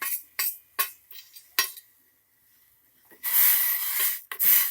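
Metal kitchen utensils clinking sharply against a pot about four times as spices and jaggery go into the boiling water, then, after a short pause, two loud bursts of rushing hiss near the end.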